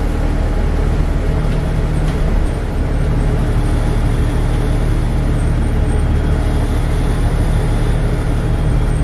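Denning Phoenix low-floor city bus under way, heard from inside the passenger cabin: a steady low engine and drivetrain drone with road noise, dipping briefly about two and a half seconds in.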